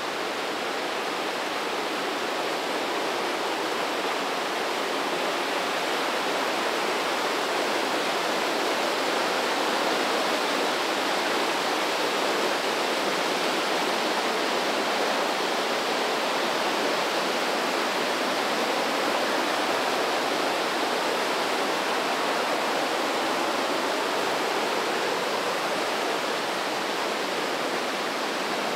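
The Breitach river rushing through a narrow rock gorge: a steady, loud rush of fast-flowing water with no break.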